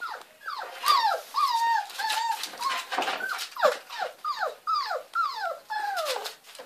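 Springer spaniel puppies whining, a rapid run of high calls that each slide down in pitch, about two a second. The whining is the puppies calling for their mother on the other side of the barrier.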